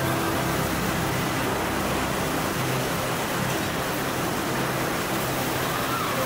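Steady, even machine noise of an ice cream production line running, with conveyor belts and industrial robot arms at work.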